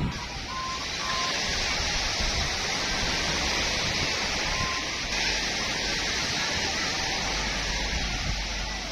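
Steady wash of surf breaking on a sandy beach, an even rushing noise without break.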